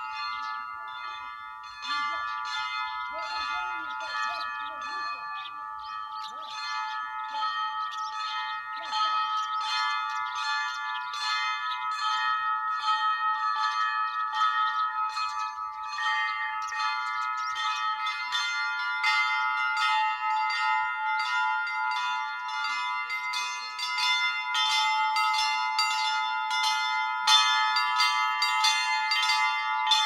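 Russian Orthodox church bells ringing: several small bells struck rapidly over one another in a continuous peal. It grows louder and busier toward the end.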